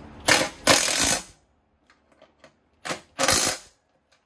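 Metal clattering and rattling as a lawn tractor seat is forced onto its metal mounting bracket: two loud rattling bursts about a second long each, with a few small clicks between them and one more near the end.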